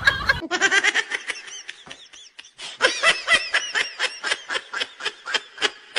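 Rapid, high-pitched laughter: a string of short 'ha' pulses about six a second, with a short lull about two seconds in before it picks up again.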